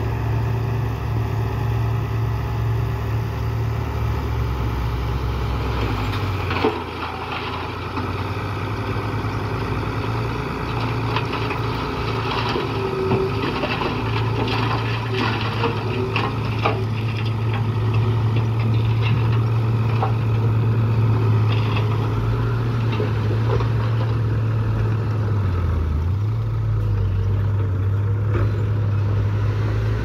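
Dump truck's diesel engine running steadily while the hydraulic hoist raises the bed and the load of rocks and soil slides out, with rocks clattering down. A sharp knock about seven seconds in, and the engine note grows stronger about halfway through.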